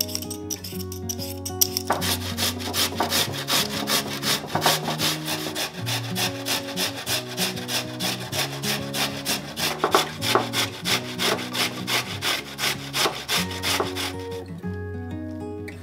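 Raw potato being grated on a stainless steel box grater: quick, even rasping strokes, about four a second. The strokes start about two seconds in and stop shortly before the end, over soft background music.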